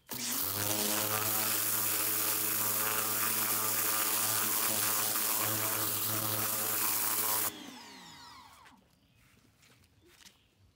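Pressure washer blasting a dog-proof trap clean: the pump motor starts abruptly with a steady hum under the hiss of the water jet. About seven and a half seconds in it cuts off and its pitch falls as the motor winds down.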